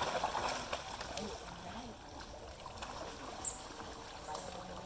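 A dense crowd of catfish thrashing at the water's surface, making a continuous run of small splashes and slaps. The splashing is busiest in the first second.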